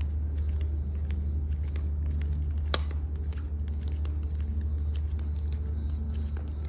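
A steady low rumble, with one sharp click about three seconds in.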